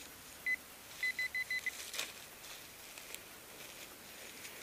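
Handheld metal-detecting pinpointer beeping as it is probed in the dug hole near a metal target: a single beep about half a second in, then a quick run of five beeps. A soil or leaf rustle follows at about two seconds.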